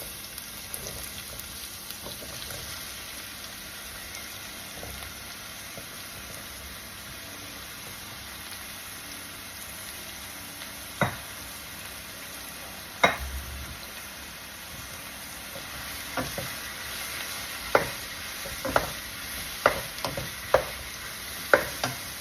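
Sliced mushrooms frying with ginger-garlic paste in hot oil in a large pan, a steady sizzle. A spatula knocks against the pan twice around the middle and then about once a second near the end as the mushrooms are stirred.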